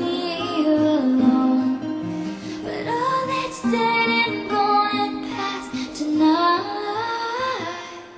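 Slow song with a woman singing long, held notes over instrumental backing.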